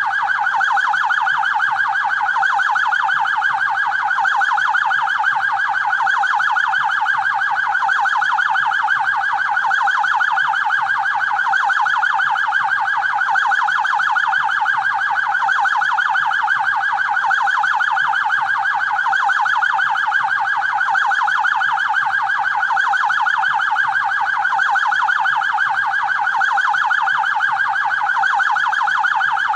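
Electronic police siren sounding continuously in a fast, even warble that does not change.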